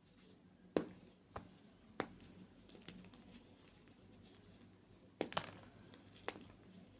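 White Reform gym chalk being crushed, giving a handful of short, sharp crunches at irregular intervals, the loudest about a second in and again around five seconds in.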